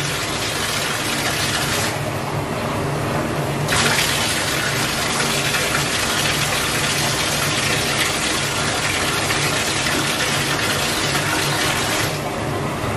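Bathtub faucet running full into the tub: a steady, loud gush of water. Twice the hiss turns duller for a second or two and then comes back.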